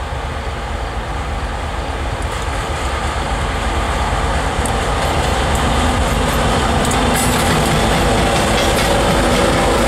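EMD SD9043MAC and GE AC44CW diesel-electric freight locomotives running as they approach and pass close by, the engine and train noise growing steadily louder. A few sharp clicks from the wheels on the rails come in the second half.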